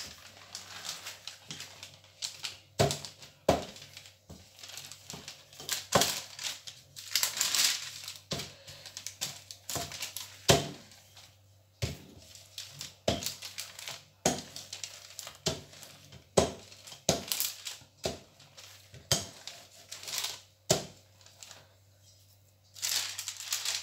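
Wooden rolling pin flattening peanut brittle mixture between sheets of baking paper on a plastic cutting board: the paper crinkles and rustles, with irregular sharp knocks.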